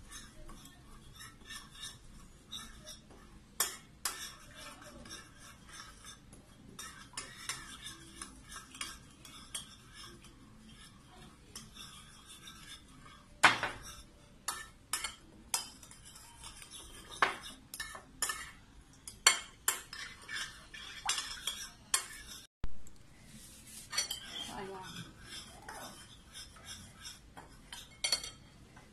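Metal spoon stirring an olive-oil and spice marinade in a ceramic bowl, clinking and scraping against the bowl in quick irregular strokes, with one sharp, louder clink about halfway through.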